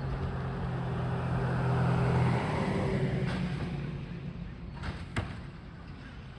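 Garbage truck's engine running close by, growing louder to a peak about two seconds in and then fading as the truck moves off. Two sharp knocks sound near the end.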